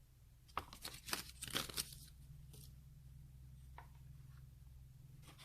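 Packaging being handled, faint crinkling and crackling: a quick run of short crackles in the first two seconds, then a couple of single ones, over a low steady hum.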